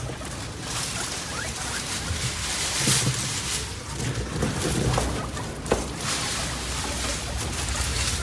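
Hairless guinea pigs moving through dry straw and heaps of fresh-cut elephant grass, a continuous rustling with several short sharp crackles, the loudest a little before six seconds in.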